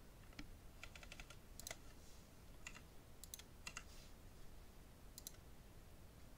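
Faint clicks of a computer mouse and keyboard: a quick run of several clicks about a second in, then single clicks spaced through the rest.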